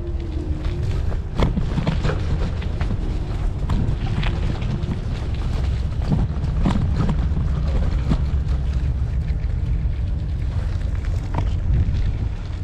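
Wind buffeting the microphone in a heavy low rumble as an electric rental scooter rides over a rough gravel road. The scooter rattles and knocks now and then as it jolts over the stones.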